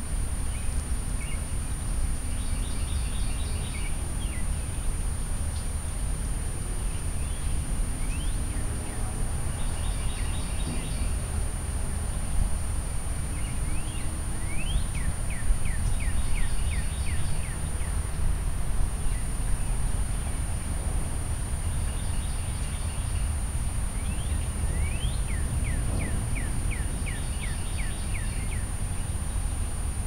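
Songbirds singing, among them a northern cardinal repeating runs of slurred whistled notes every few seconds, with a second, higher trilled song between them. A steady low rumble runs underneath.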